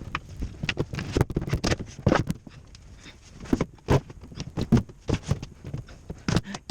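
Irregular knocks and taps, several a second, of wooden cupboard parts being handled and fitted together during assembly.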